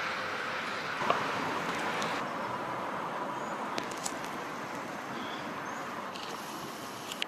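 Siemens Combino NF8 low-floor tram rolling by, a steady rumble of wheels and drive that slowly fades as it moves away. A sharp click comes about a second in, with lighter ticks later.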